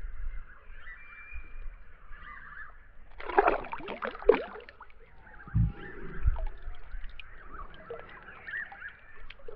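Water sloshing and splashing as a released Murray cod kicks free of the hand and swims off, loudest about three and a half to four and a half seconds in, followed by a couple of low thumps.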